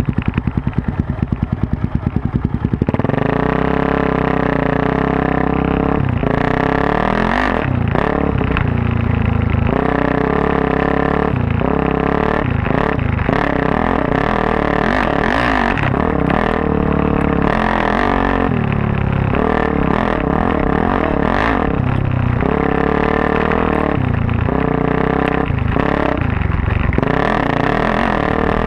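Suzuki DRZ400S single-cylinder four-stroke, bored out to 440 cc and running a full Yoshimura off-road exhaust, beats slowly at idle for about three seconds. It then pulls away under throttle, its pitch rising and falling again and again as the bike is ridden off-road.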